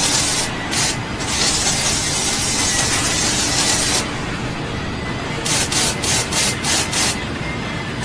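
A rough rubbing, scraping noise, steady at first and then coming in short strokes about three a second in the second half.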